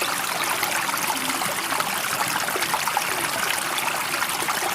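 Steady rush and trickle of running water, even in level throughout.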